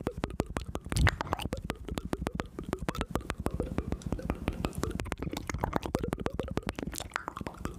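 Close-microphone ASMR mouth sounds: a rapid stream of wet clicks and pops, many per second, with a louder low thump about a second in.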